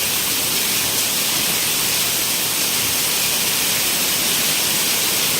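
Heavy rain falling hard in a steady, even hiss.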